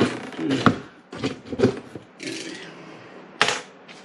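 A cardboard delivery box being opened by hand: its flaps and the paper inside rustling and scraping, with several short knocks and a louder sharp crackle near the end.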